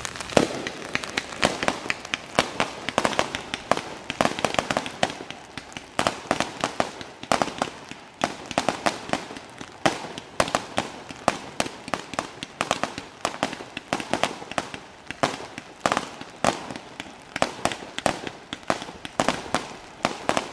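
Aerial fireworks bursting in a rapid, unbroken string of sharp bangs and crackles, several every second.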